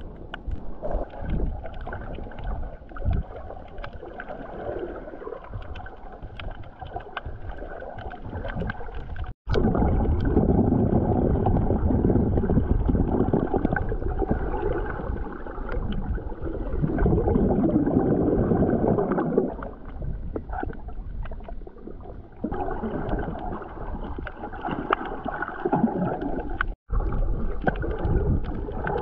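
Muffled underwater water noise heard through a GoPro's waterproof housing: water sloshing and gurgling around the camera as the snorkeller swims. It grows louder for several seconds in the middle and breaks off for an instant twice.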